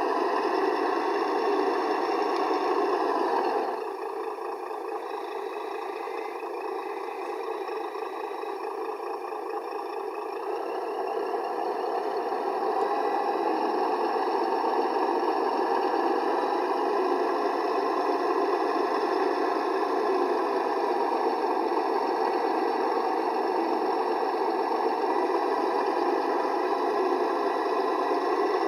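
ESS-One sound module in an RC MAN TGA truck playing a MAN V8 diesel engine sound, dropping to a quieter idle about four seconds in and building back up over the following several seconds.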